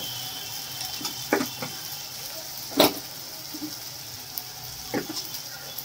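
Onions and ginger-garlic paste sizzling steadily in hot oil in a pan. A few sharp clinks of a spoon against a steel bowl cut through, the loudest nearly three seconds in.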